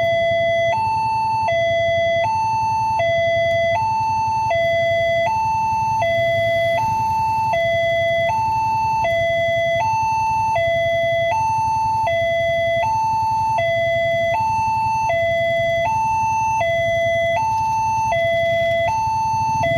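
Railway level-crossing warning alarm, newly installed, sounding a two-tone hi-lo signal that switches between a higher and a lower tone about every three-quarters of a second, warning that a train is approaching.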